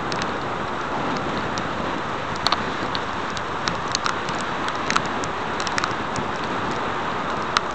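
Steady rush of wind and tyre hiss from a bicycle running fast downhill on a wet road, with scattered sharp ticks.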